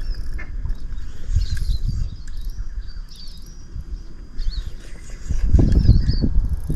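Short bird chirps repeating every second or so over a loud low rumbling noise, which swells near the end.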